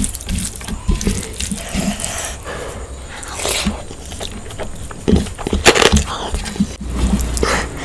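Close-miked wet eating sounds: chewing and smacking of spicy mutton goat head curry and egg biryani, with scattered sharp clicks.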